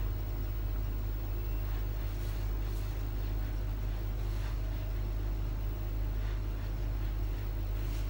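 A steady low rumble of background noise, with a few faint soft brushing sounds as fingers pat and rub cream into the skin.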